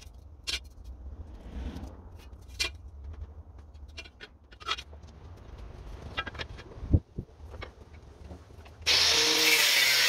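Scattered light clicks and taps of a steel leaf spring being scribed and handled, with a sharp knock about seven seconds in. About nine seconds in, an angle grinder with a cut-off disc starts abruptly and runs loud and steady, cutting through the leaf spring steel.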